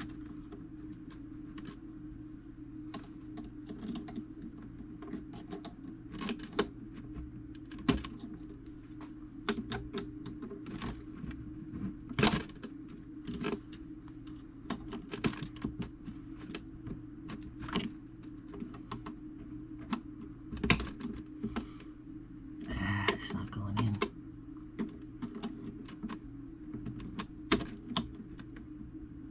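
Irregular small clicks and taps of metal clock parts being handled and fitted as a fusee clock movement is reassembled, over a steady low hum.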